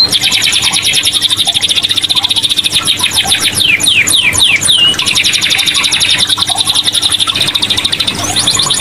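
Domestic canary singing continuously in long, rapid rolling trills of fast repeated notes, with a few downward-sliding whistles about halfway through before the trilling resumes.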